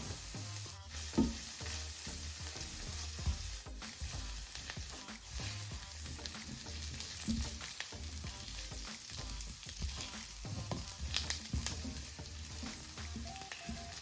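Asparagus sizzling in a hot frying pan while being stirred, with a utensil clicking against the pan every so often.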